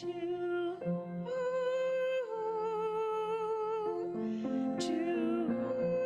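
A solo voice singing long held notes with vibrato, without words, over sustained accompaniment, stepping to new notes a couple of times.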